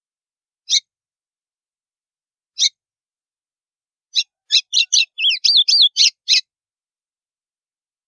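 White-throated seedeater (golinha) singing its 'estalo' (snapping) song type: two single sharp notes about two seconds apart, then about four seconds in a quick run of clicking notes mixed with short whistled slides lasting about two seconds.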